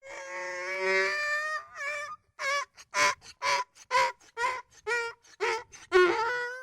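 Donkey braying: a long drawn-out opening note, then a run of rapid hee-haw cycles at about two calls a second.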